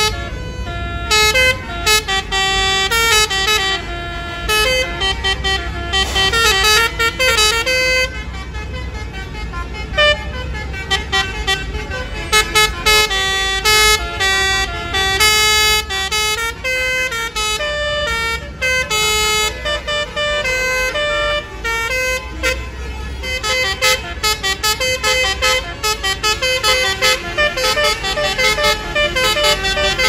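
Bus telolet horns, multi-trumpet horns playing quick tunes of changing notes in short bursts, one run after another, over the low running of a bus engine.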